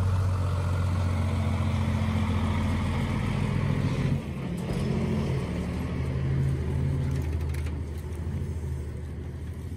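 Diesel engine of a semi-truck hauling a livestock trailer, running with a steady low rumble as the rig moves slowly along. It eases off a little about four seconds in.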